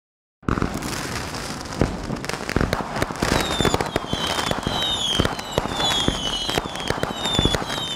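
Fireworks going off in a dense barrage of crackles and bangs, with repeated short falling whistles over them. The sound starts suddenly about half a second in.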